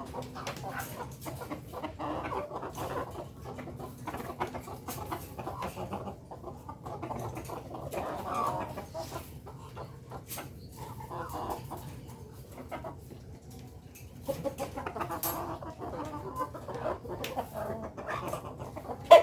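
A flock of ayam kampung (Indonesian native chickens) clucking continuously, with scattered light ticks and taps among the calls.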